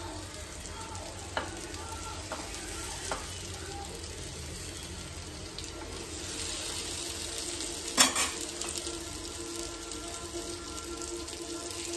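Vegetable seekh kebabs sizzling as they shallow-fry in a little oil on a nonstick tawa over a low flame, with a few light clicks as they are turned and one sharp knock about eight seconds in.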